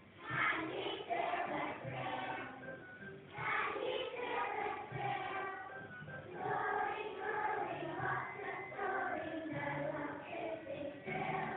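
A group of young children singing together as a chorus.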